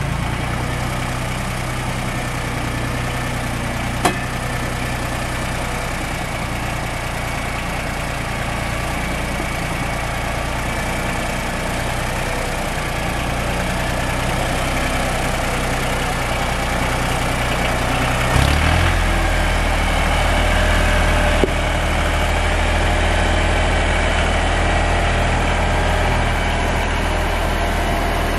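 Farm tractor engine running steadily as it pulls a loaded trailer along a dirt track. About two-thirds of the way through the engine note drops lower and grows slightly louder; a single sharp click comes a few seconds in.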